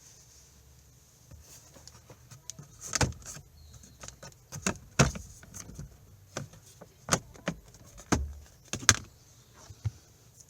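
Irregular sharp clicks and knocks, about a dozen, from something being handled; the loudest come about three, five and nine seconds in.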